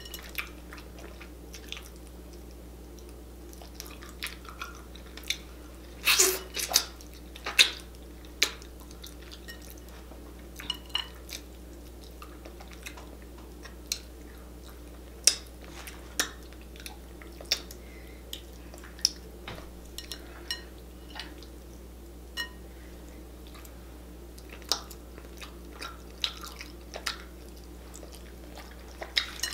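Close-miked eating: wet chewing and scattered sticky clicks and smacks as fingers tear saucy rotisserie chicken apart and it is bitten, with a louder cluster of wet sounds a few seconds in. A steady low hum lies underneath.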